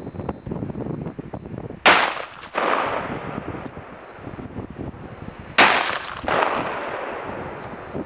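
Two gunshots about four seconds apart. Each is a sharp, loud report followed by a softer second report about two-thirds of a second later.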